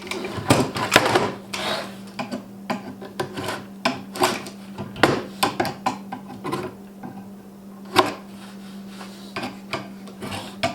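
Steel chisel scraping and chipping dried wood glue off a steel bar clamp: a run of irregular scrapes and sharp metallic clicks, a few louder than the rest.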